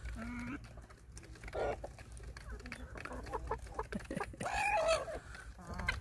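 Chickens clucking: a few short calls and one longer call near the end, given while the birds square off through a wire fence.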